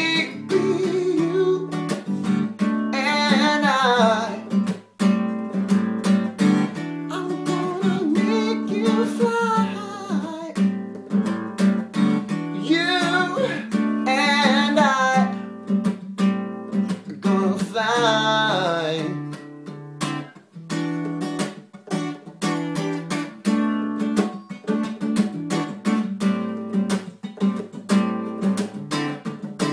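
Acoustic guitar strummed steadily, with a man's voice singing long held, sliding phrases four times over it.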